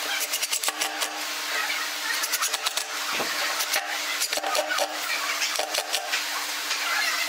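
Cordless impact driver driving screws into softwood, running in repeated short bursts of rapid hammering clicks.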